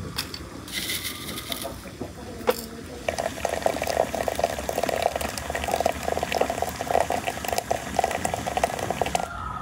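Water running from a samovar's tap into a glass teapot of loose tea and dried flowers, starting about three seconds in and stopping shortly before the end. A few light clicks come before it.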